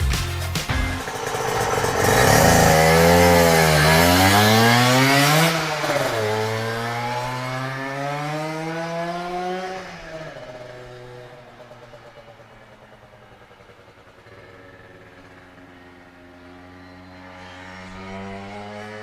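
Yamaha TZM two-stroke engine with a DGW expansion chamber exhaust, revving hard on a circuit. The pitch climbs and drops repeatedly through gear changes, with a sudden drop about six seconds in. It is loudest in the first few seconds, fades, then builds again near the end.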